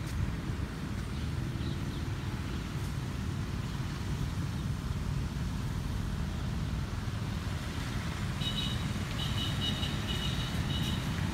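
Steady low rumbling outdoor noise. For a couple of seconds near the end, a high two-tone chirping comes in short repeated bursts.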